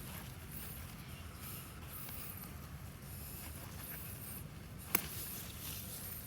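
Soft rustling and scraping of hands digging through garden soil and potato plants, over a low steady rumble, with one sharp click about five seconds in.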